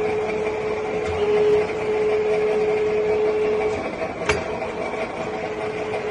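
6N13P vertical milling machine running with a steady mechanical whine from its spindle drive. A single sharp click comes about four seconds in, around when the whine briefly drops out.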